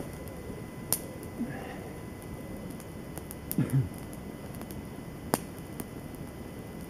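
Wood campfire burning, with sharp crackles and pops scattered over a steady hiss. A brief low sound about three and a half seconds in.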